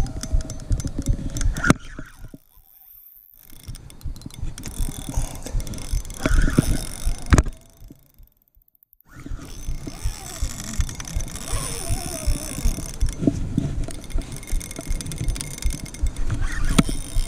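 Penn Slammer III 5500 spinning reel being cranked to retrieve line, its handle and gears giving a rapid run of clicks and knocks. The sound drops away almost to nothing twice, once about two seconds in and again near the middle.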